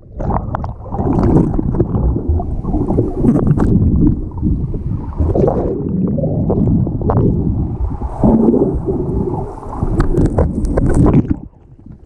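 Sea water sloshing, bubbling and churning around the bare built-in microphone of a GoPro HERO5 Black held underwater: a muffled, rumbly underwater wash broken by sharp knocks and splashes.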